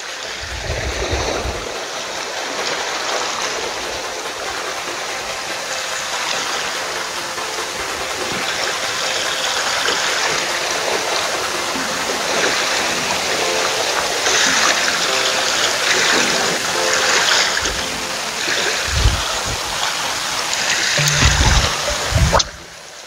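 Seawater washing against a rocky shore, a steady rushing hiss with a few low thumps near the start and the end. It cuts off suddenly just before the end.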